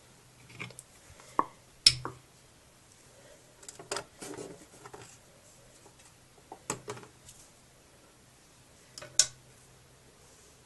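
Small hard objects being handled and knocked against a surface: scattered sharp clicks and knocks, loudest about two seconds in and again near the end.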